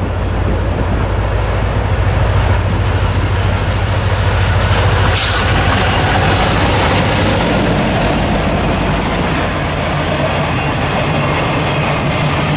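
Train passing close by: the steady drone of the diesel locomotive's engine over the rumble of wheels on the rails, with a brief hiss about five seconds in.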